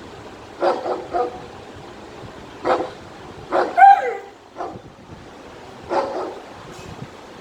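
Three-month-old German Shepherd puppy barking in short bursts, mostly in twos and threes with pauses between. About four seconds in, one bark stretches into a higher yelp that falls in pitch.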